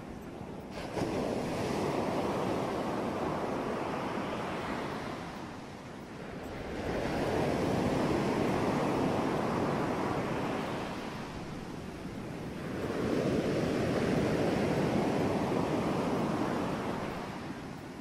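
Ocean surf: waves washing in and drawing back in three slow swells, about six seconds apart, each building and then falling away.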